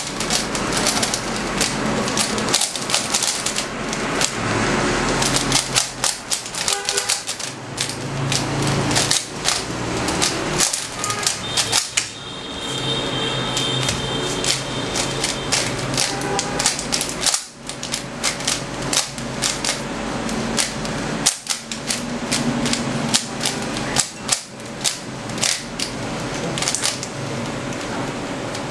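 A 3x3 Rubik's cube being turned very fast by hand, its layers giving a rapid, dense run of plastic clicks and clacks during a speedsolve, with only brief pauses.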